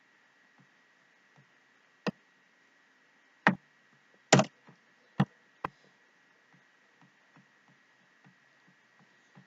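Sharp clicks and taps of a computer mouse and keyboard during code editing: half a dozen separate clicks, the loudest a close pair about four and a half seconds in, with faint soft ticks between them over a faint steady hum.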